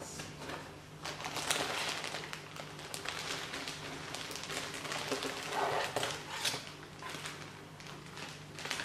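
Packaging being handled: irregular crinkling and rustling with small clicks and taps, over a low steady hum.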